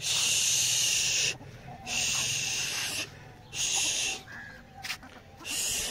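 A person making long 'shhh' hushing sounds four times, the first the longest, to shoo chickens along.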